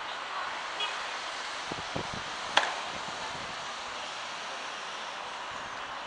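Steady outdoor background hiss with a few low thumps of wind on the microphone around two seconds in, and one sharp click about half a second later.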